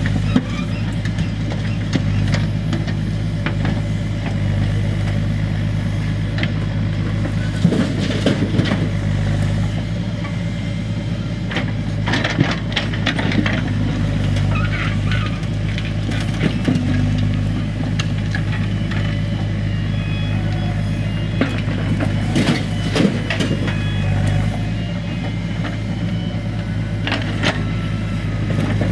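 Backhoe loader's diesel engine running steadily, with repeated knocks and clatter of stones and metal as it loads stones into a tractor trolley.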